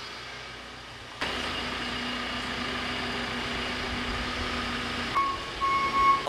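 JCB telehandler's diesel engine running, revving up sharply about a second in and then holding steady. A high beep sounds twice near the end.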